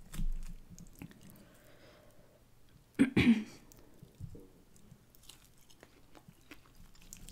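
Close-miked chewing of barbecued meat: soft wet mouth clicks and chewing, with one louder burst about three seconds in.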